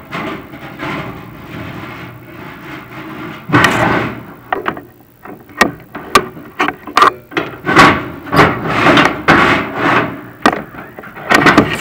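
Chimney inspection camera and its rods scraping and knocking inside a prefab fireplace's metal flue as the camera is pushed along. It is a soft rustle at first, then from about three and a half seconds in a run of loud, irregular scrapes and sharp clacks.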